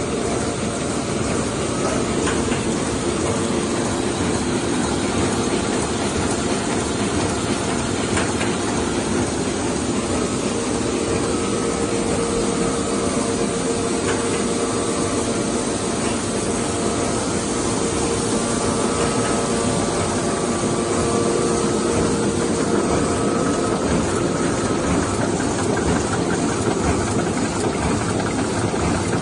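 Shinohara 75 five-colour sheetfed offset printing press running: a steady, loud mechanical rush with a few held tones through it.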